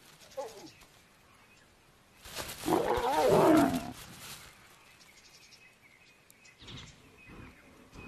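Lion snarling: a brief low growl just after the start, then one loud, harsh snarl of about two seconds beginning about two seconds in, its pitch wavering up and down.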